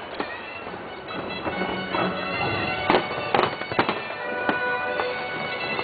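Fireworks display with several sharp bangs of shells bursting in the second half, over a bed of steady, sustained droning tones.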